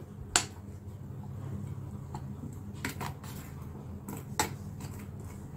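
Metal spoon stirring a wet spice paste in a stainless steel bowl, with a few sharp clinks of the spoon against the bowl: about half a second in, twice near three seconds, and once past four seconds. A steady low hum runs underneath.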